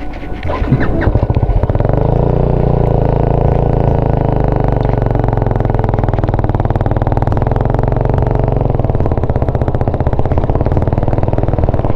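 Motorcycle engine running under way while being ridden. It eases off briefly at the start, then runs steadily, its pitch drifting up and down with the throttle.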